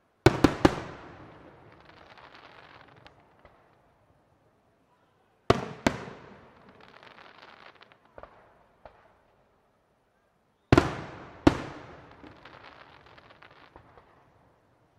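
Aerial display firework shells bursting in three volleys about five seconds apart. Each volley is two or three sharp bangs, followed by a couple of seconds of crackling as the stars burn out.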